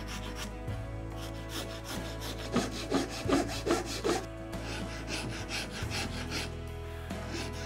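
Hand file rasping across walnut in a steady run of back-and-forth strokes, shaping the male end of a sliding dovetail. Soft background music plays underneath.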